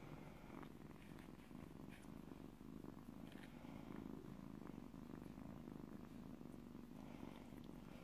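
Black kitten purring: a continuous low, steady purr while it is stroked.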